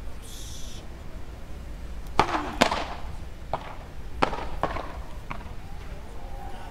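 Beach tennis paddles hitting the ball in a rally: six sharp cracks about half a second to a second apart, starting about two seconds in, each with a short ring under the dome.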